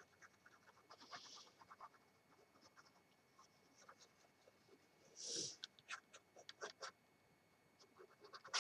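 Mostly near silence: faint ticks and rustles of a sheet of card being handled and turned, with two short breathy hisses, about a second in and, louder, about five seconds in.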